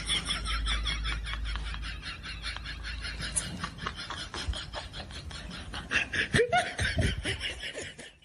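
A person laughing in quick repeated bursts, with a few short pitched vocal cries about six to seven seconds in.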